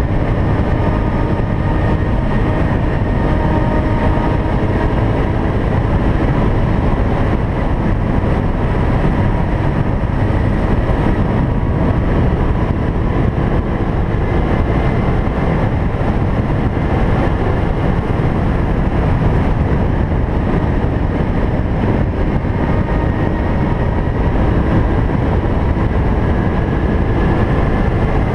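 An ATV engine running steadily at cruising speed along with a constant rush of tyres on gravel, heard close up from the moving quad.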